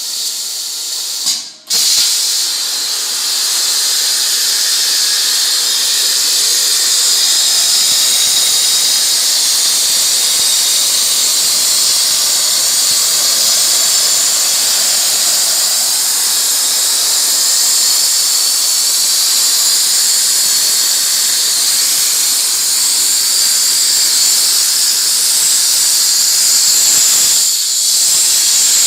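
Plasma cutting arc of a CNC plasma table hissing steadily as it cuts sheet metal. The arc cuts out for a moment about a second and a half in, then restarts.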